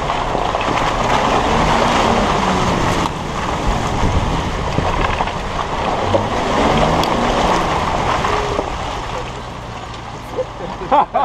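Jeep Wrangler JK driving slowly along a dirt trail, heard from a camera on its front fender: a steady rushing noise of wind over the microphone and tyres on the dirt, with the engine underneath.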